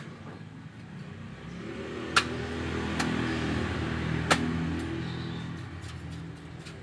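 A motor vehicle's engine passing by, its hum swelling to a peak mid-way and then fading. A few sharp clicks sound over it.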